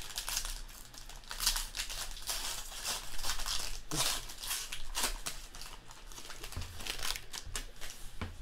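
Foil trading-card pack wrapper being torn open and crumpled by hand: a string of irregular crinkling crackles.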